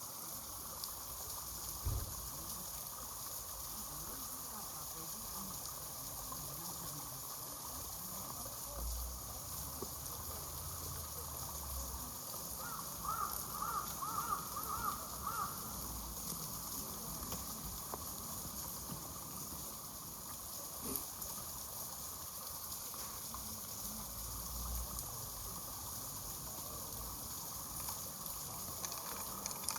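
Outdoor park-pond ambience: a steady background hiss. Midway a bird calls about six times in quick succession, and there are a few low dull bumps.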